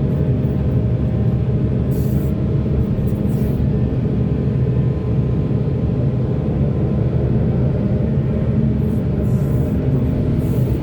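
Heavy diesel machinery engine running steadily in a low, even drone, with a few short hisses along the way.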